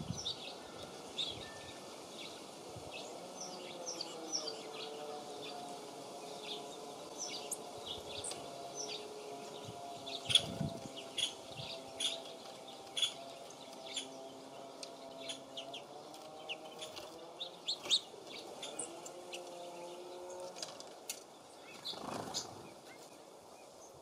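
Small songbirds at a feeder giving many short, high chirps and call notes, scattered throughout. A low droning hum of several steady tones runs underneath for much of the time.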